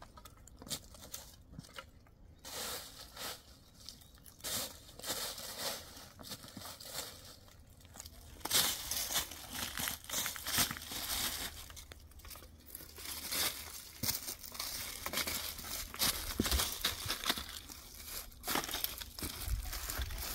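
Dry fallen leaves crunching and rustling underfoot, with dry sticks clattering as they are gathered by hand for firewood. The crackling grows busier and louder from about halfway through.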